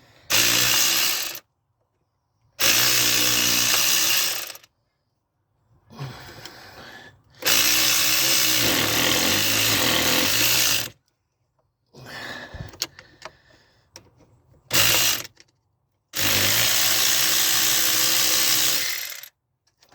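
A power tool run in five bursts of one to three seconds, each starting and stopping sharply with a steady motor pitch, used on a part that was well stuck. Quieter clatter of handling comes between bursts.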